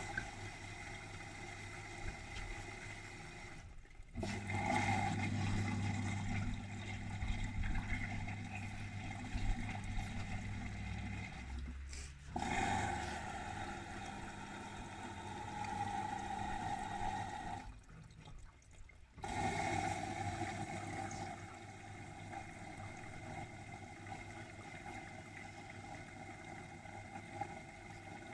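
Gorenje WaveActive washing machine running its test program, a steady motor hum with water running into the drum. The sound cuts out suddenly about four seconds in, again about twelve seconds in, and for over a second around eighteen seconds in.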